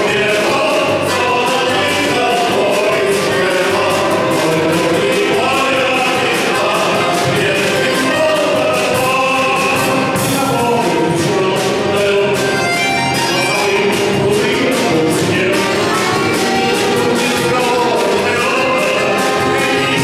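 A small vocal-instrumental band playing live: several men's voices singing together over violin, accordion and acoustic guitar, with a steady drum beat.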